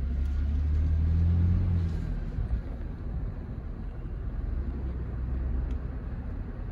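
Low rumble of a car driving slowly, its engine hum swelling for about the first two seconds and then settling to a steady drone.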